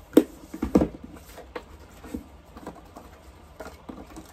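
Handling noises from a quilting kit's pattern and fabric pieces being moved about: rustling with light knocks and taps, the loudest cluster within the first second, then scattered smaller ones.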